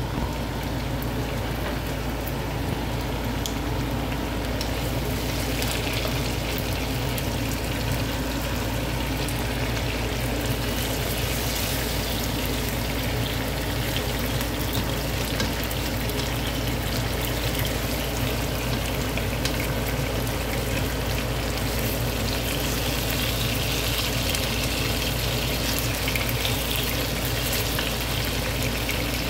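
Pork pieces frying in oil in a nonstick pan: a steady sizzle with many small crackles throughout.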